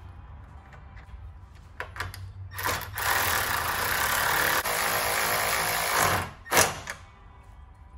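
Cordless drill-driver driving a screw into a plastic grille bracket. A few handling clicks come first, then the motor runs steadily for about three seconds with a brief hitch midway and stops. A sharp knock follows near the end.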